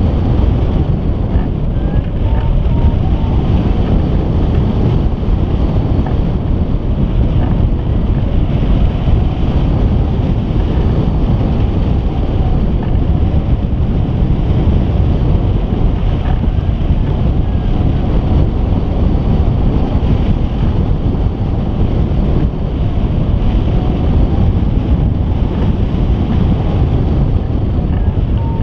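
Steady, loud wind noise from the airflow rushing over a camera microphone mounted on a hang glider in flight.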